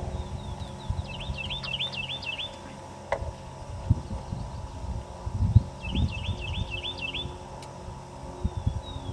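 A songbird singing a short phrase of quick repeated high notes, twice, with uneven low thumps and rumble on the microphone.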